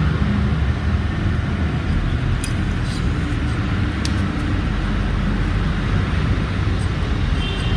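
Steady low rumble of background noise, with a few faint clicks from handling and a thin high tone near the end.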